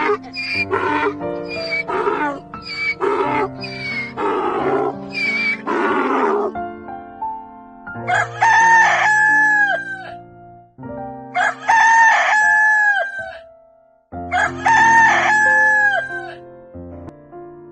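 A rooster crowing three times, each crow a long held call of about two seconds, over background music. In the first few seconds, before the crows, comes a quick series of short animal calls.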